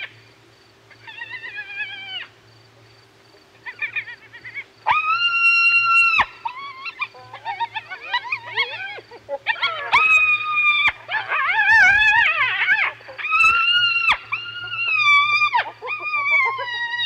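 Spotted hyena calling at close range: a series of high, drawn-out whines, each about a second long and dropping in pitch at the end, with a wavering, giggle-like stretch about two-thirds of the way through. The calls are soft at first and louder from about five seconds in.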